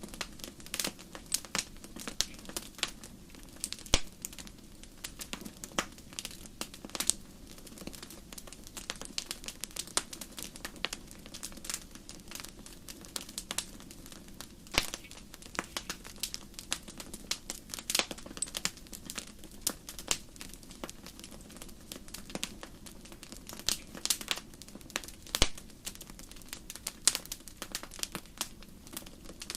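Wood campfire crackling: a steady stream of small irregular pops and snaps over a low hiss, with a few louder sharp cracks now and then.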